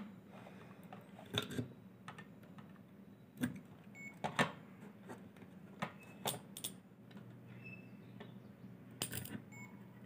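Light, scattered clicks and taps as bare wire ends are pushed into the holes of a plastic switchboard socket and the board is handled, over a faint steady low hum.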